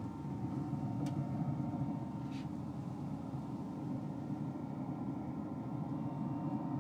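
Steady low hum of a running Traeger Ironwood 650 pellet grill's fan, with two faint clicks in the first few seconds.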